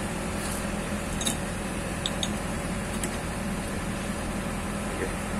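Kobelco excavator's diesel engine running steadily at a low, even rumble, with a few faint clicks.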